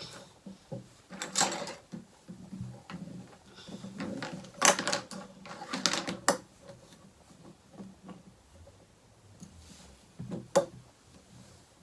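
Plastic Play-Doh tools and molds clicking and clattering as they are handled on a tabletop: a brief clatter about a second in, a longer run of rattling knocks in the middle, and one sharp knock near the end.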